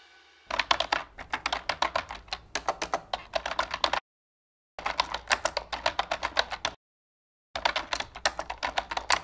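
Typing sound effect: rapid keyboard keystrokes in three runs with short silent pauses between them, one run for each line of text being typed out.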